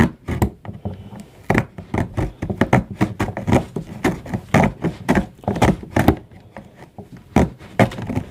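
Folding saw blade of a Stanley multi-tool sawing back and forth through a piece of material, about three strokes a second with a couple of short pauses.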